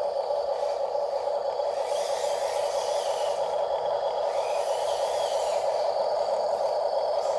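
A steady, even hum-like hiss throughout, with the small electric motor and gearbox of a WPL RC military truck whining in two short spurts, about two seconds in and again about four and a half seconds in, as it drives across the sand.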